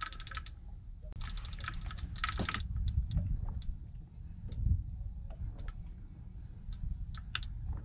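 Fishing reel on a rod bent into a large thresher shark, clicking in two quick runs in the first few seconds, then in scattered single clicks, over a low rumble.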